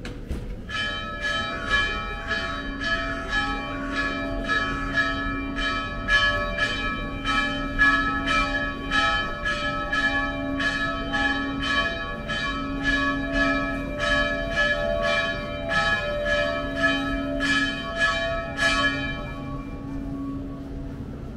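Church bell rung in a quick, even run of strokes, about two to three a second, stopping about nineteen seconds in and ringing away to nothing, over a steady low hum.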